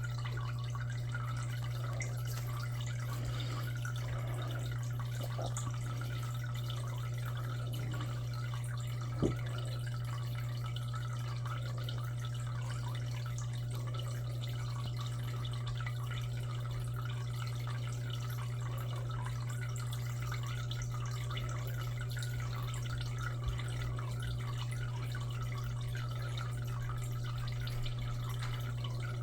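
Aquarium filter running: a steady low hum from its pump under constant trickling and dripping water. A brief knock about nine seconds in, and a fainter one later.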